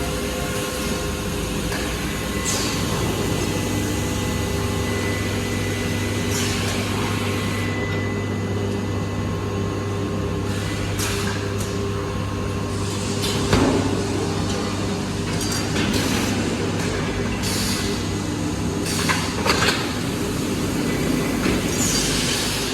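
Short-cycle laminating hot press line running: a steady machine hum with several held tones, broken by occasional short knocks and hisses. The loudest is a clank about halfway through, and a few sharper knocks come near the end.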